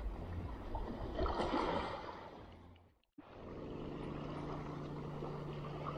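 Small sea waves washing at the shoreline, with wind noise. About three seconds in, the sound fades out to silence and then comes back, now with a steady low hum under the wash.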